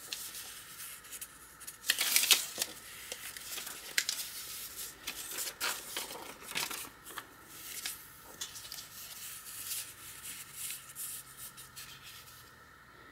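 Old paper and photographs rustling and crinkling as they are handled, slid and tucked into the pockets of a handmade paper journal. The sound comes in irregular scrapes and rustles, the loudest about two seconds in.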